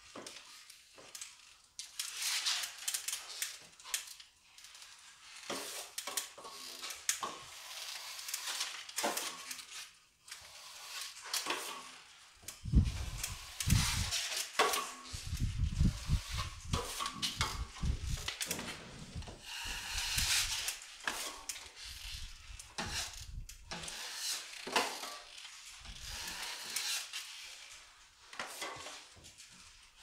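Steel finishing trowel scraping joint compound onto drywall in repeated irregular strokes, with occasional metallic clinks of trowel against hawk and a few low thumps about halfway through.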